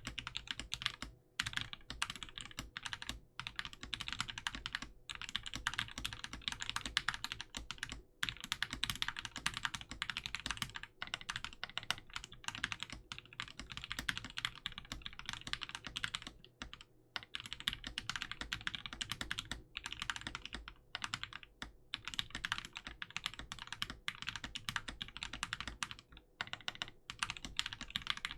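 Fast, continuous typing on a Corsair K70 mechanical keyboard with hand-lubed switches (SP-Star bottom housings, NK Cream tops and stems, Krytox 205g0) and Cherry profile keycaps, broken by brief pauses every few seconds.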